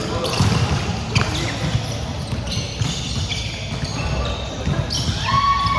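Volleyball play on a court: several sharp ball strikes and thuds, with short high squeaks and a held call near the end.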